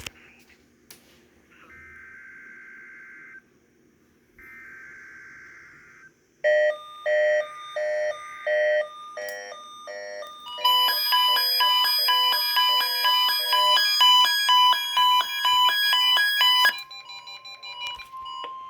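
Weather radios receiving a NOAA Weather Radio Required Weekly Test. First come two short, buzzy bursts of digital alert-header data. The radios' alert beeps start about six seconds in, then several radios beep at once in fast repeating patterns. Near the end a single steady tone takes over.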